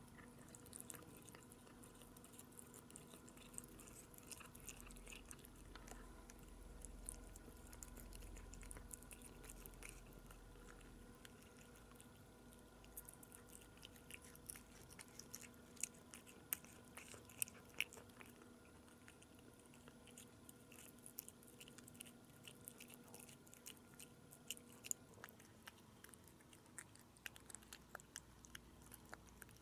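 A cat chewing and smacking on soft chunks of food from a bowl: many faint wet clicks and smacks, coming thicker and louder about halfway through, over a faint steady hum.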